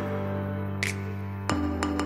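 Background music: held synth chords with a single light percussive hit partway through, changing chord about one and a half seconds in.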